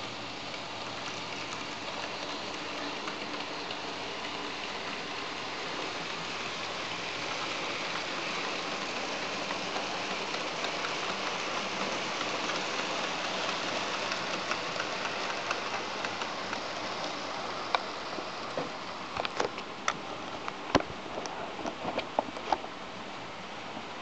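Model electric freight train, a model Ae 6/6 locomotive hauling goods wagons, running on the layout's track: a steady rolling whir of wheels on rails that swells as the wagons pass close. Several sharp clicks follow in the last few seconds.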